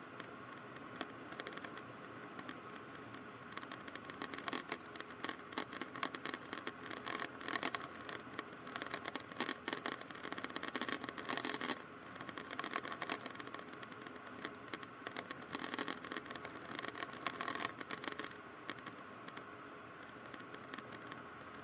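Faint steady hiss with irregular scratchy crackling, as on a headset intercom recording in a light aircraft cockpit. The crackling thickens from about four seconds in and thins out again a few seconds before the end.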